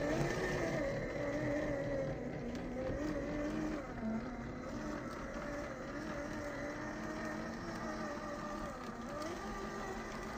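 Electric motor and gearbox of a 1/10 scale RGT Rescue LC70 RC rock crawler whining as it climbs a rocky trail, the pitch rising and falling with the throttle.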